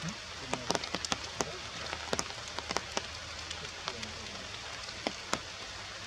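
Rain falling steadily, a constant hiss with many irregular sharp ticks of single drops striking close by.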